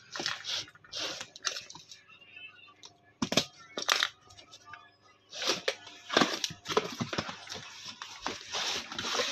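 Cardboard speaker box handled on a counter: irregular rustling and scraping of the card, with sharp knocks and clicks, two of the loudest a few seconds in and more busy handling in the second half.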